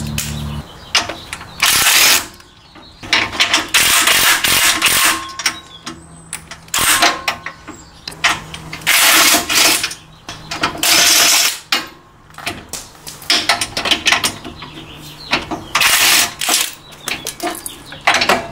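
Cordless impact wrench hammering in about eight short bursts, loosening the 15 mm bolts that hold the factory sway bar to its frame bracket. Lighter metallic clicks and knocks come between the bursts.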